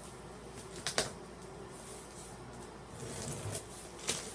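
A cardboard box being opened by hand: cardboard flaps and packaging rustling and sliding, with a sharp knock about a second in and another near the end.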